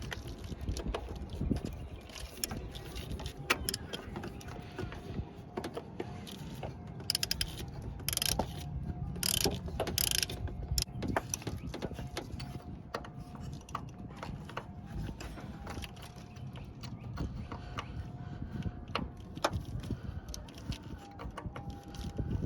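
Hand tools working on a car, a ratchet wrench among them: repeated ratcheting clicks and metal knocks, with a few short hissing bursts about a third of the way through.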